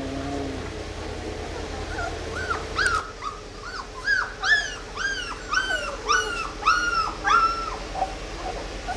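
Two-week-old Labrador retriever puppies whimpering: a run of about a dozen short, high squeals, each rising then falling in pitch, about two a second, starting a couple of seconds in and trailing off into fainter cries near the end.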